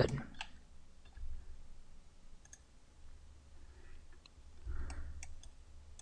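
A few faint, scattered computer mouse clicks over a low steady hum.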